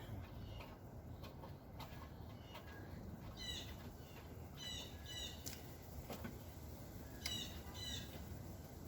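A bird chirping: short, high, falling chirps, mostly in pairs, repeated a few times over faint background noise.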